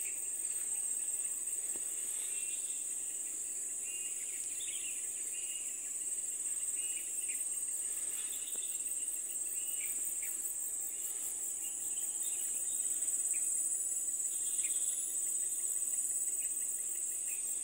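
Steady high-pitched drone of a tropical insect chorus, continuous and even throughout, with scattered faint short chirps.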